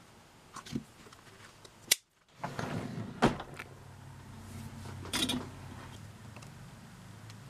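Clicks and small knocks from leather hand tools: a rotary leather punch snapping shut through chrome-tanned leather, then, after a sudden cut, brass eyelets being handled and pressed with small pliers. The two loudest sharp clicks come just before two seconds in and about three seconds in.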